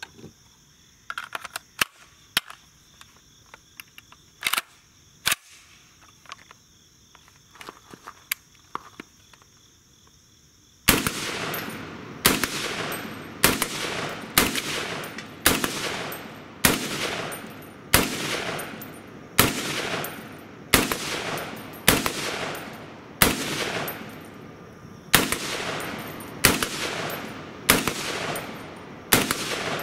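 FN SCAR 17S semi-automatic rifle in .308 (7.62×51 NATO) fired rapidly, a shot about every three-quarters of a second, each crack followed by a short echo, with one brief break about two-thirds through. Before the shooting, about the first third holds only faint clicks over a steady insect chirring.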